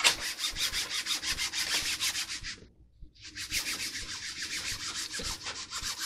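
A wipe rubbed fast back and forth over Solartex covering on a balsa model wing, scrubbing at a mark that got ironed into the surface. The rubbing stops briefly about two and a half seconds in, then starts again.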